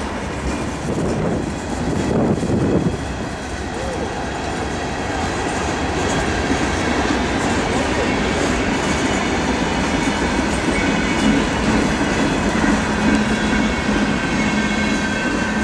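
Freight train cars rolling past: a steady rumble of steel wheels on rail with rhythmic clicking over the rail joints.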